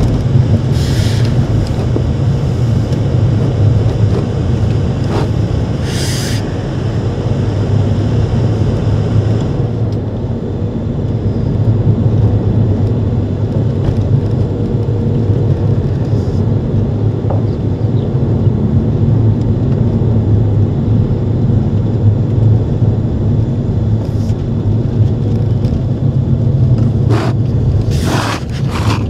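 Steady low rumble of road and engine noise heard inside a moving car's cabin, with a few brief clicks or knocks now and then.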